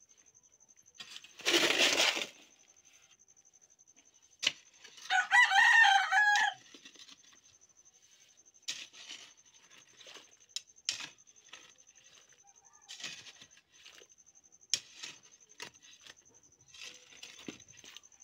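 A rooster crows once, about five seconds in. Around it come a short loud scraping rush early on and then scattered scrapes and knocks of a hand hoe pulling loose soil into a foundation trench.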